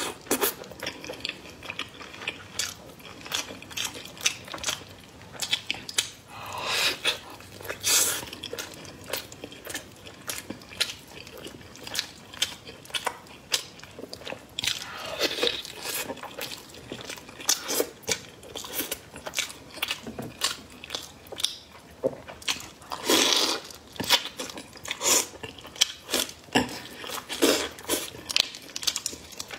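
A person biting and chewing glazed braised meat, with irregular wet mouth clicks and crunchy bites and a few louder bites scattered through.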